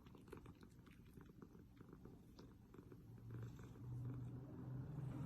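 Domestic cat purring, faint, starting about three seconds in and swelling in and out with its breaths; a few light ticks before it.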